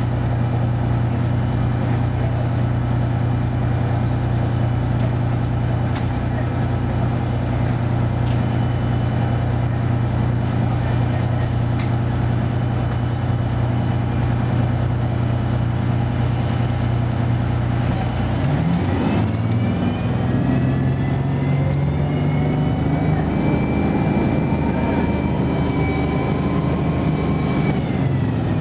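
Detroit Diesel 6V92TA two-stroke V6 diesel of a 1995 Nova Bus Classic idling steadily with an even low throb while the bus stands. About eighteen seconds in, it revs up as the bus pulls away, with a rising whine over the engine note.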